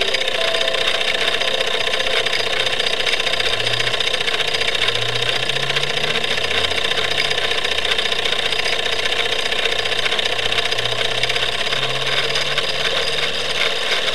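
Wilesco D36 toy steam engine running steadily, driving the bellows and mechanism of an M99 miniature organ with a constant whirring, hissing mechanical noise. Over it the organ sounds a slow line of sustained low notes as the punched music strip feeds through.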